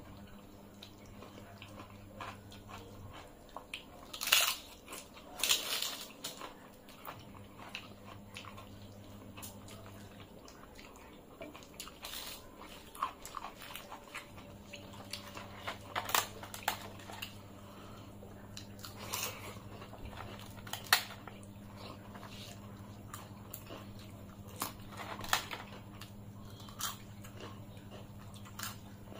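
Close-miked eating with the hands: irregular crunches and chewing of rice, curry and crisp sides, with fingers working food on the plates. A low steady hum runs underneath and cuts out twice for a few seconds.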